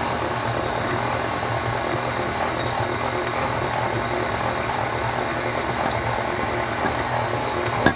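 Electric mixer running steadily as it beats a sweet bread dough of flour, eggs, milk and sugar; the motor is working harder as the dough turns compact. A single sharp click near the end.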